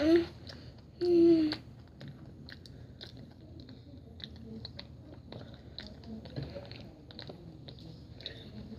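A person chewing a mouthful of dried catnip, with irregular small crunching clicks. A short voiced sound comes about a second in.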